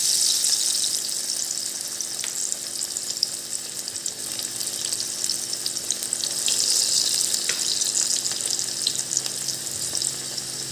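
Chana dal bhaji batter deep-frying in hot oil: a steady sizzle with small crackles, swelling for a couple of seconds about six seconds in as another spoonful of batter goes into the oil.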